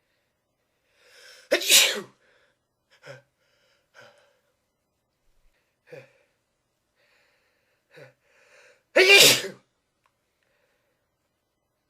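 A person sneezing twice, about a second and a half in and again about nine seconds in, with a few short, much quieter sounds between the two sneezes.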